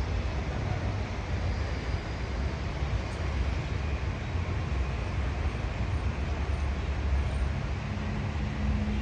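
Steady low rumble with a hiss over it and no distinct events: wind on the phone's microphone over distant rail and traffic noise beside the railway tracks.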